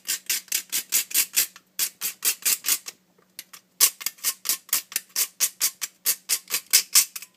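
A utensil stirring dry flour mix in a bowl: quick, rhythmic scraping strokes about five a second, with two short pauses.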